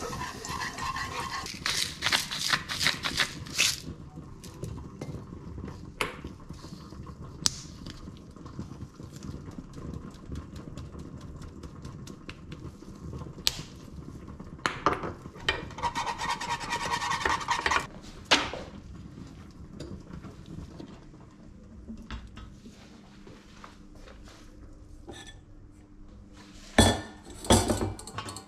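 Whisking a béchamel in a small saucepan: a metal whisk scraping and rattling against the pan in bursts. Near the end come a few sharp metal clanks of cookware.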